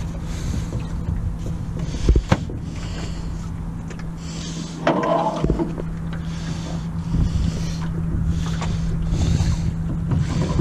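Oars of a small wooden rowboat dipping and splashing in the water as rowing begins, in soft strokes every second or two, with a sharp wooden knock about two seconds in.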